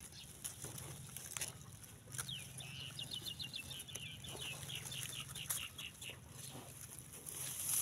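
A bird calling: a run of about fifteen quick notes over some four seconds, falling slightly in pitch, with a few soft clicks around it.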